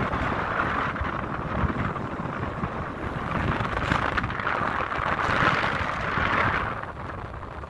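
Wind buffeting the microphone on the open deck of a moving ship: a low rumbling flutter under a rushing hiss that swells and ebbs several times, easing off near the end.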